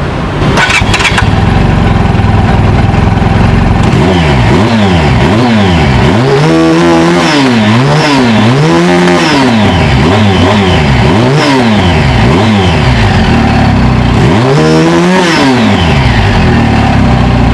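Shark 350cc twin-cylinder motorcycle engine (Zongshen-built) idling through its dual exhaust, then revved in a run of about eight quick throttle blips from about four seconds in, each rising and falling in pitch, before settling back to idle near the end. The engine is already warmed up.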